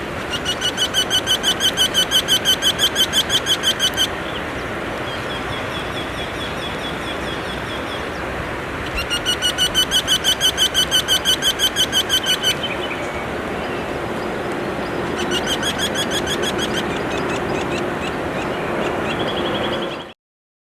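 Eurasian wryneck singing: three bouts of rapidly repeated, evenly spaced notes, about four or five a second. The first two bouts last three to four seconds each and the third is shorter, with fainter series of notes between them.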